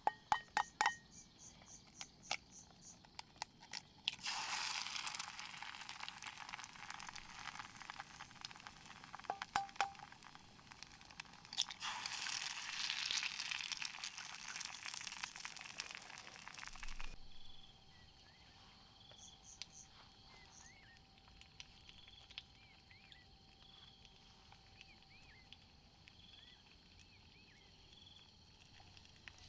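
A few sharp clicks, then a dense crackling, crinkling hiss for about thirteen seconds that cuts off suddenly. Afterwards it is much quieter, with faint small chirps.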